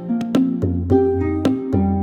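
Relaxing Chinese-style instrumental music: a melody of plucked string notes, about three or four a second, each ringing and fading, over a steady low bass line.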